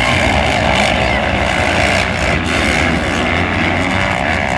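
A pack of motocross bikes racing together, many engines revving at once in a loud, continuous blend of engine noise.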